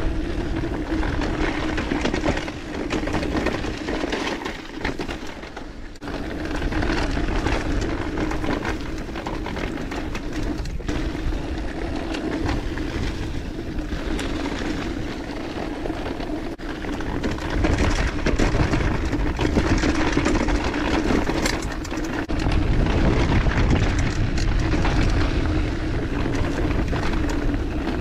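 Mountain bike rolling fast down a dirt singletrack: tyre noise on the dirt, with short knocks and rattles over bumps. Wind rumbles on the microphone, heavier in the second half.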